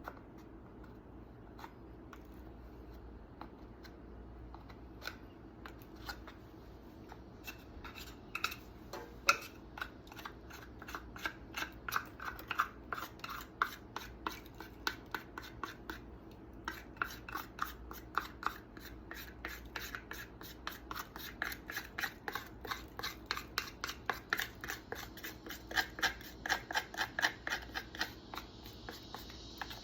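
Hand scraping of caked sawdust and grime off a Stihl MS271 chainsaw: a few scattered scrapes, then quick repeated scraping strokes, several a second, with a short break partway through.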